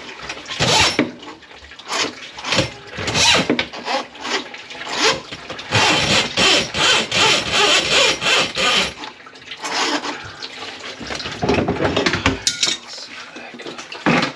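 Water sloshing and splashing in irregular bursts, with a run of quick, rhythmic splashes in the middle, as a flooded, grease-clogged kitchen sink drain is worked.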